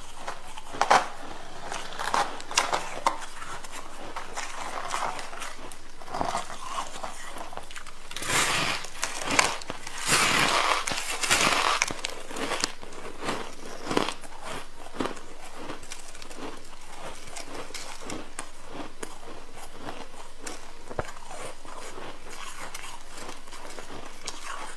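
Frosty white ice crackling and crunching as a crumbly block is handled and broken, with scattered sharp crackles. A denser, louder stretch of crumbling comes about eight to twelve seconds in, as a big chunk is pulled loose.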